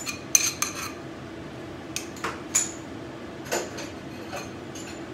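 A metal spoon tapping and scraping on a ceramic plate, knocking the last chopped vegetables into a pot: a quick run of clinks in the first second, then single clinks and knocks of dishes and utensils every half second or so. A steady low hum runs underneath.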